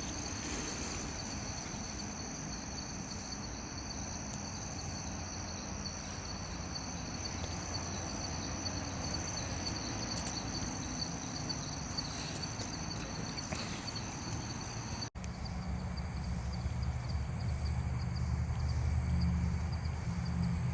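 Steady chirring of insects, several high tones held at once over a soft hiss. About fifteen seconds in it cuts off abruptly and gives way to a higher-pitched insect drone over a low hum.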